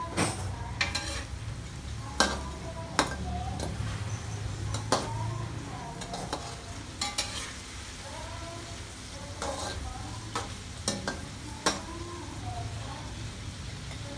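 Shrimp frying in butter and oil in a stainless steel wok, sizzling steadily. A metal ladle stirs them and clinks sharply against the wok about a dozen times, over a low steady hum.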